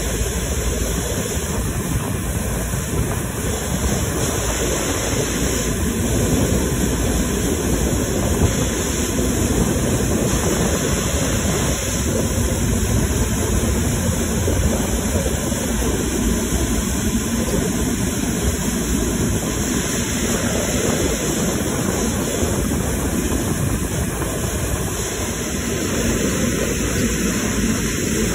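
Airbus A380's turbofan engines running at low taxi thrust as the airliner rolls slowly past close by: a steady, loud engine noise, heaviest in the low end with a hiss above it.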